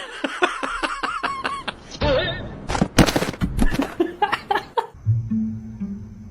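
A person laughing, then music with a low, repeating bass line starting about five seconds in.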